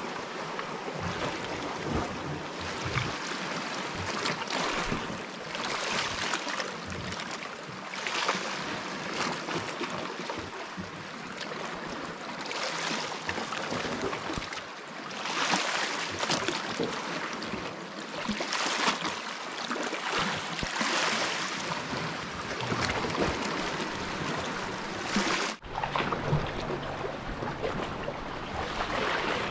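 Sea waves washing against a rocky shoreline, a steady hiss of water that surges and eases every couple of seconds.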